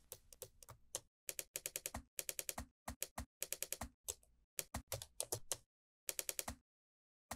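Keyboard typing sound effect: quick runs of key clicks with short pauses between them, the longest pause coming near the end.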